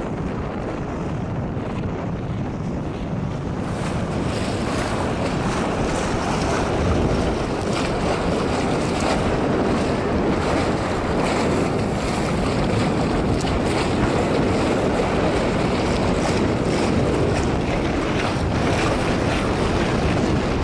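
Water rushing along the hull of a moving sailboat, with wind buffeting the microphone; the rush grows a little louder about four seconds in.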